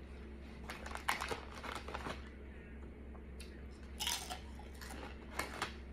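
Doritos tortilla chips being eaten: short crackling crunches and crinkling from the chip bag, in a cluster about a second in and again around four seconds in as a chip goes into the mouth.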